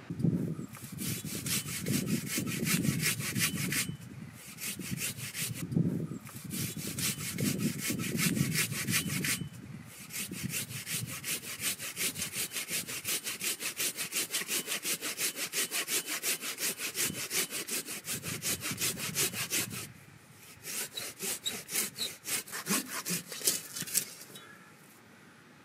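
Hand saw cutting through a cedar log in quick, even push-pull strokes, in several runs with short pauses between them. The strokes stop near the end as the section is cut off.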